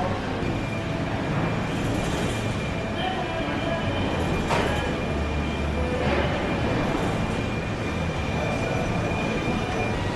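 Steady factory-floor machinery noise: a continuous low rumble and hiss with a thin high whine running through it, and a couple of brief knocks about halfway through.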